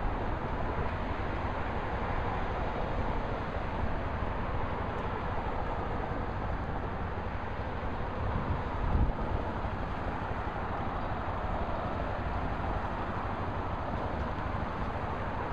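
Road noise of police patrol cars passing, a steady rush of tyres and engines with no sirens, and wind rumbling on the microphone, swelling about 9 seconds in.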